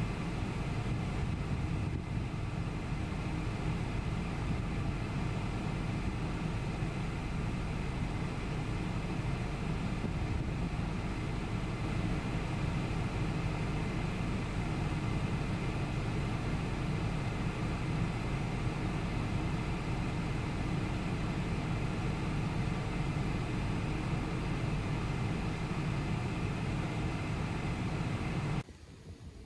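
Steady road and engine noise of a car driving, which cuts off abruptly near the end.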